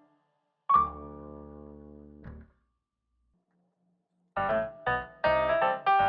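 Background music on a keyboard: one chord held and fading about a second in, a gap of nearly two seconds, then short chords played in a steady rhythm near the end.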